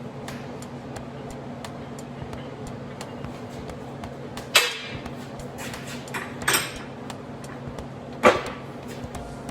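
Three sharp knocks, each about two seconds apart, over a steady machine hum with faint regular ticking.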